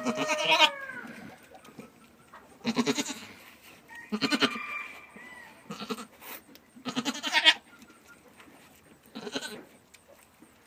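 Goats bleating: five short quavering bleats spaced about two seconds apart. The end of a rooster crow overlaps the first bleat.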